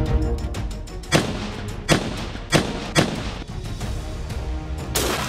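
Four sharp gunshots, spaced about half a second to a second apart, then a longer blast near the end, over background music.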